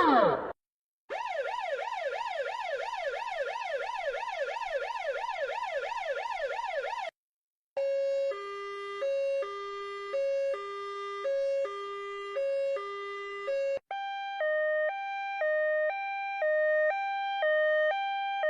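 Emergency vehicle sirens played one after another: a fast yelp sweeping up and down about three times a second, then, after a brief gap, a two-tone hi-lo siren alternating between two notes, which cuts off abruptly and gives way to a higher-pitched two-tone hi-lo siren.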